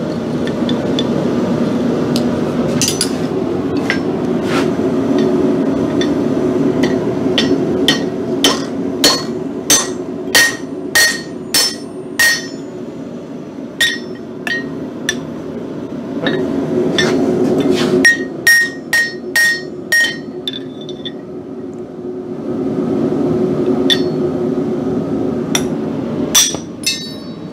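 Hand hammer striking a hot nail held in a steel nail header on an anvil, heading the nail: runs of quick ringing metal blows, about eight in a row a third of the way in and about five more past the middle, then a few scattered strikes near the end. A steady low rushing noise runs underneath.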